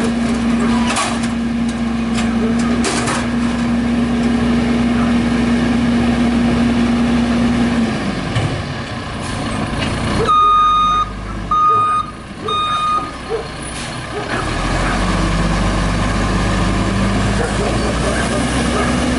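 Heil FL front-loader garbage truck's diesel engine held at high revs to drive the hydraulics as the arms dump a container into the hopper, with a steady whine and a few clanks, winding down after about eight seconds. A backup alarm then beeps three times, and the engine revs up again as the truck pulls away.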